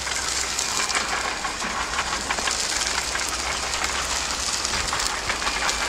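Chicken thighs on rotisserie skewers sizzling over hot charcoal: a steady hiss full of small crackles and pops. Lots of sizzling like this is the sign that the chicken is very close to being ready.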